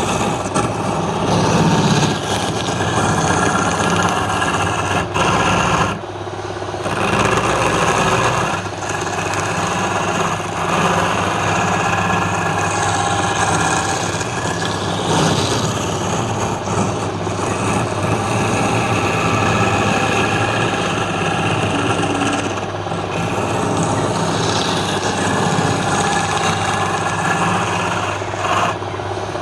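Wood lathe running, a turning tool cutting into the spinning wood. A steady motor hum sits under a rough scraping hiss, and the cutting lets up briefly a few times.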